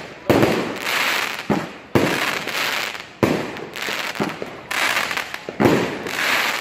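Consumer aerial fireworks cake firing shot after shot, a sharp report about every second or so, each followed by about a second of hissing as the stars burn out.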